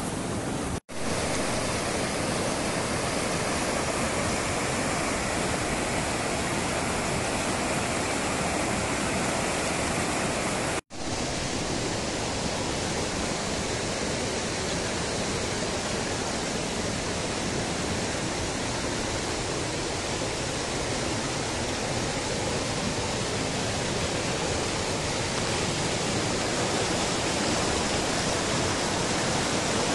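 Fast mountain river running over boulders in whitewater rapids: a steady rush of water, cut off for an instant twice, about a second in and about eleven seconds in.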